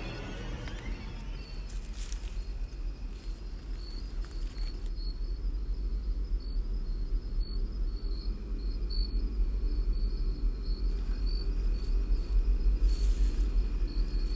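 Crickets chirping in a steady run of short, high-pitched pulses, over a low rumble that grows louder toward the end.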